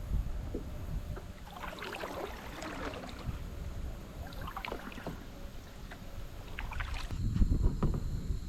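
Kayak paddle strokes splashing in the water in a few bursts, over a low rumble on the microphone that swells near the end.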